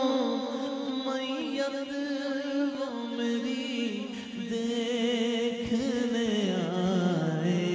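A man singing a naat, an Urdu devotional poem in praise of the Prophet, into a microphone. He draws out long, wavering held notes, and the melody sinks lower about six seconds in.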